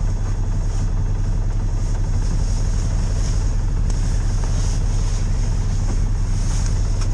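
Side-by-side UTV's engine running steadily, a low drone with a fast pulse, heard from inside the cab.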